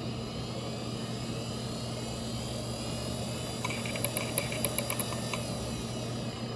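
Seagate Medalist ST34342A IDE hard drive running with a steady spindle hum and whine, then, about halfway through, a rapid run of about eight sharp head clicks lasting under two seconds. The drive is failing: it loops through failed reads and power-cycles itself.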